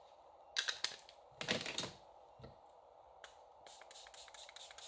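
Plastic clicks and knocks as an ink pad is handled and pressed onto a clear acrylic stamping block, then a quick run of short spritzes from a small spray bottle misting water onto the card.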